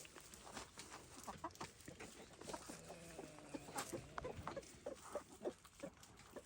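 Backyard chickens clucking softly among themselves, with scattered short clicks and ticks throughout.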